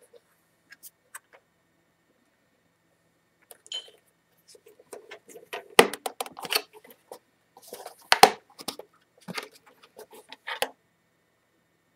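Handling noise from the white plastic housing of a TP-Link TL-WA5210G access point being turned over in the hands: scattered rubbing and plastic clicks. It starts about three and a half seconds in, with two sharp clicks, the loudest, about six and eight seconds in.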